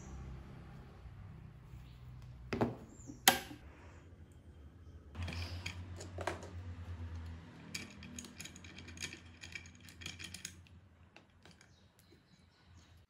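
Workbench handling noises as parts and tools are picked up, set down and clamped: two sharp clicks a few seconds in, then a run of small quick clicks and light rattles.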